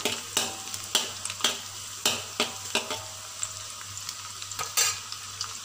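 Minced garlic sizzling in hot oil in a metal wok, with a spatula scraping and knocking against the wok every second or so as it is stirred. The garlic is at the sautéing stage, cooked until it has changed colour and turned fragrant.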